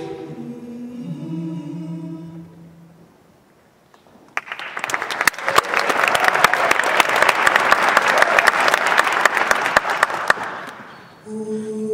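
An all-female a cappella group holds a soft final chord that fades away. After a brief hush, the audience bursts into applause about four seconds in, and the clapping dies down after about six seconds.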